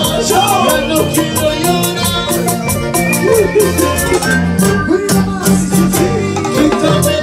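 Live band music with guitars, bass and a steady, even beat, in a Latin American dance style.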